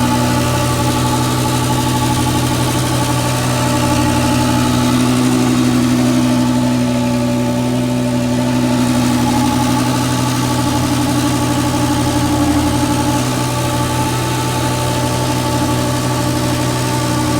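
Engine of a farm vehicle running steadily at an even speed, its pitch holding level throughout.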